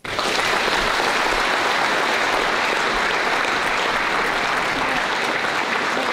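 Audience applauding, starting abruptly and holding steady.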